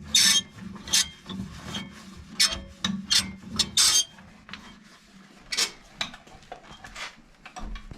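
Irregular scraping and scrubbing strokes as the grimy crank gears of an old Craftsman table saw are cleaned out. The strokes come about two a second at first and thin out in the second half.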